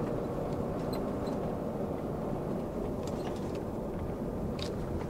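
Steady road and engine noise inside the cab of a pickup truck driving along a paved road.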